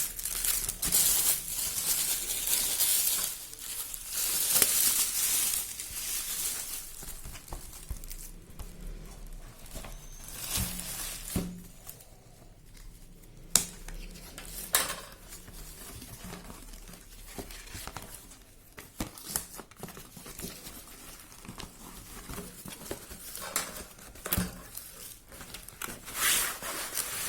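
Wrapping of a 3½-inch aerial firework shell being torn and crinkled open by hand, with scattered clicks and handling knocks. The rustling is busiest over the first several seconds, then thins to occasional crinkles and clicks.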